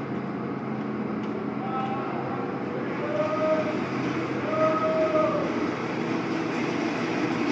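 Garbage truck engine running with a steady low hum, with several short high-pitched squeals over it.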